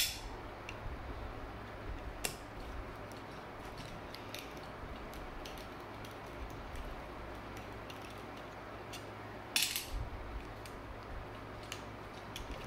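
Hand tools clicking and clinking against a metal carburetor as the base plate screws are worked loose with Allen keys. There is a sharp click at the very start, another about two seconds in, and a quick run of clinks about ten seconds in, with scattered small ticks between over a faint steady low hum.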